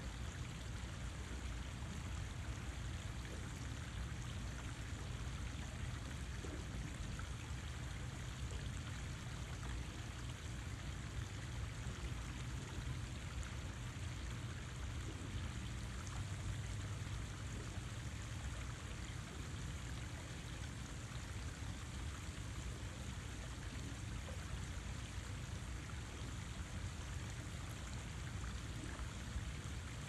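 Water running steadily, an even rushing sound with a low rumble underneath and no breaks or single events.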